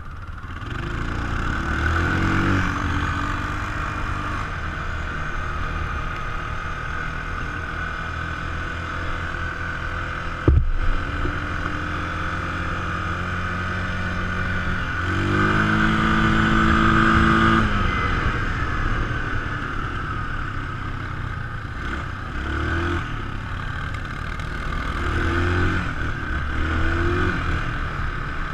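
ATV engine running under way, its pitch rising and falling with the throttle, with a clear surge of revs about halfway through. A single sharp knock about ten seconds in.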